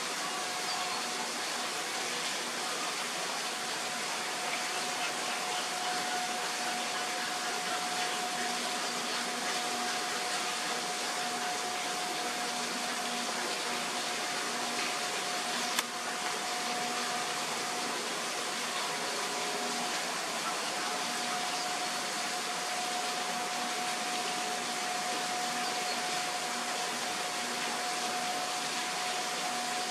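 Steady, even hiss with a thin steady tone running through it, and a single sharp click about sixteen seconds in.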